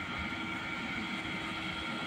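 Irrigation tubewell pump motor running with a steady hum made of several held tones, over an irregular low rumble.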